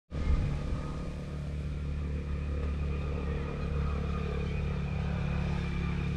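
An engine running steadily at one even pitch.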